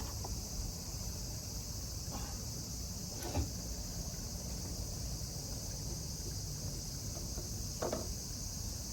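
A steady, high-pitched insect chorus with a low rumble beneath it. Two brief faint sounds come about three and eight seconds in.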